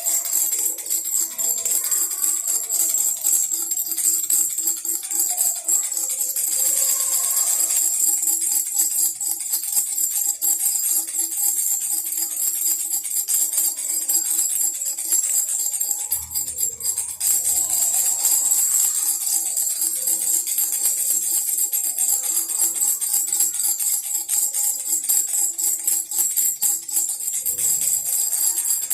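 Baby rattle shaken without a break, a fast, even, jingling rattle.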